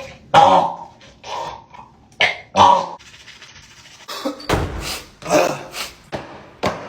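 A dog making short, irregular vocal sounds, several bursts about a second apart.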